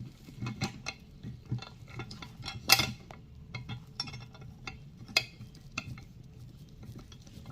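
Scattered small metal clicks and clinks of screws being handled and turned in by hand to fasten a TV stand's base plate, with one louder clink a little before the middle.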